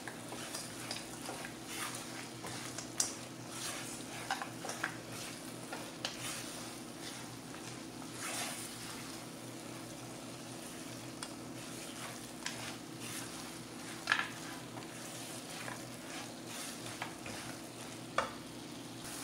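Silicone spatula stirring and scraping boondi through thick sugar syrup in a nonstick pan over a lit gas burner, with a light sizzle. Short irregular scrapes and taps, the loudest about 14 seconds in.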